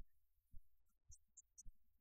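Near silence with faint low thumps at an even beat, about twice a second.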